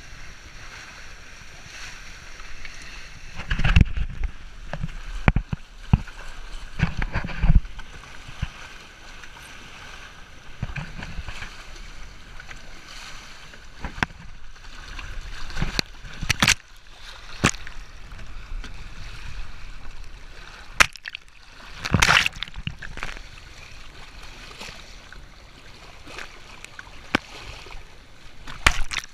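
Water rushing past the hulls of a Hobie Cat catamaran sailing fast, with spray hitting the camera and repeated sharp splashes and knocks, a few of them loud low thumps.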